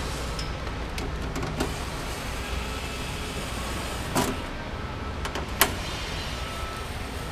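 Light clicks and a brief scrape from hands working on the dust extractor's housing, with one sharp click near the end of its second half, over a steady hum.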